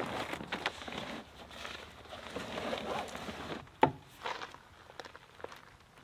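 Rustling and handling noise with scattered clicks, then a single sharp knock a little under four seconds in, followed by a few faint ticks.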